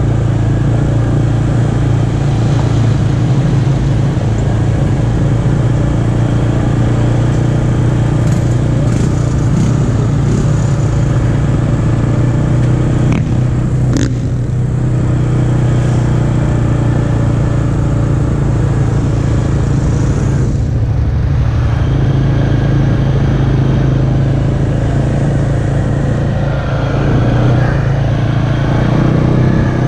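ATV engine running at a steady, even throttle, heard from the rider's seat as it moves along a dirt track, with a single sharp click about fourteen seconds in.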